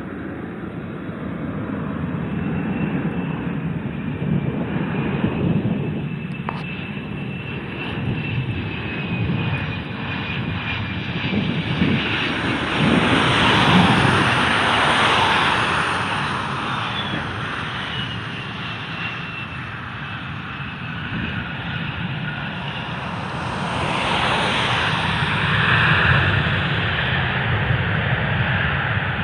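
Airliner engines running as a plane passes: a steady rumble with a thin high whine that drifts slightly in pitch, growing louder around the middle and again near the end.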